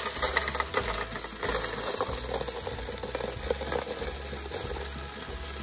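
Many small plastic Perler beads pouring from a plastic tub into a clear plastic container, a dense, continuous rattling stream of tiny clicks.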